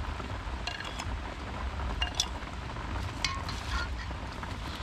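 Shredded banana stem and carrot being tossed by hand in a stainless-steel basin, with a few light clinks of a spoon against the metal, over a steady low rumble.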